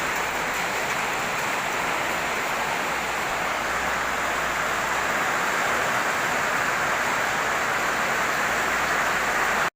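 Heavy rain pouring in a windstorm, a steady hiss with no letup. It cuts off abruptly near the end.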